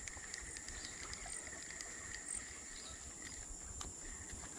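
Insects chirring steadily at two high pitches, with a few faint scattered clicks.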